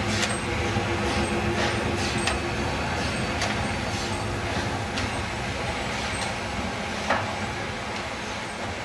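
Class 75 steam tank locomotive moving slowly past at close range, with a steady low hum and hiss and a run of sharp knocks every half second to second. The loudest knock comes about seven seconds in.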